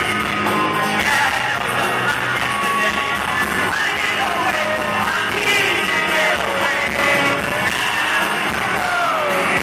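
Live rock band playing with a singer, heard from inside the crowd on a phone microphone.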